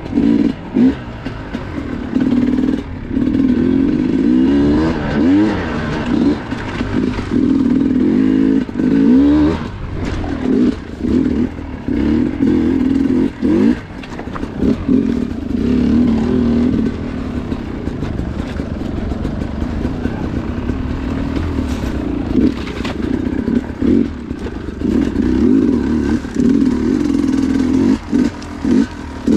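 Two-stroke dirt bike engine being ridden hard off-road, its revs rising and falling constantly, the throttle chopped and reopened many times. Clattering knocks come through over the engine.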